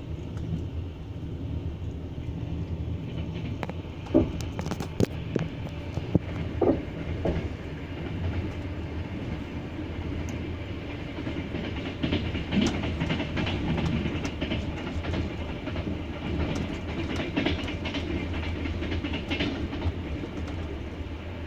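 Double-deck passenger train running at speed, a steady low rumble with its wheels clattering over rail joints. There are sharp knocks several seconds in and a run of clicks later on.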